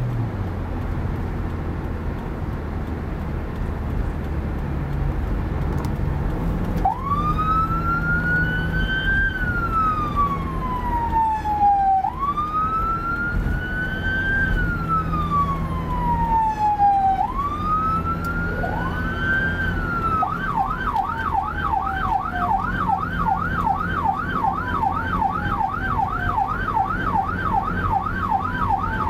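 Steady road and engine noise inside a moving car for about seven seconds. Then an electronic emergency siren starts in wail mode: three slow cycles, each rising quickly and falling slowly. About 20 seconds in it switches to a fast yelp of about two sweeps a second.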